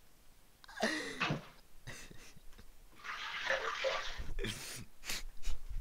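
A short cough-like vocal sound about a second in. Then a kitchen tap runs for about a second, followed by a few sharp knocks near the end.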